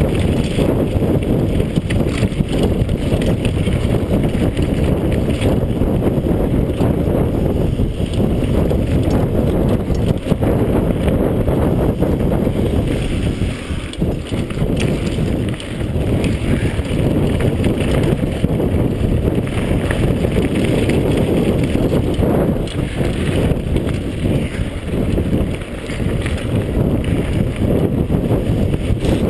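Wind rushing hard over the microphone of a mountain bike rider's camera during a fast downhill on dirt singletrack, with the bike rattling and knocking over the rough ground.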